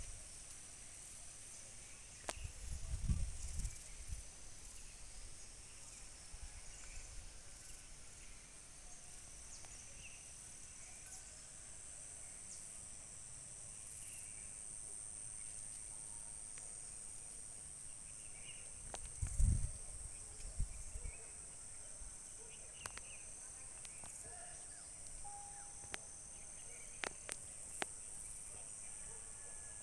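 Steady, high-pitched chorus of insects such as crickets, running without a break, with a few faint clicks. Two brief low rumbles break in, one a few seconds in and a louder one about two-thirds through.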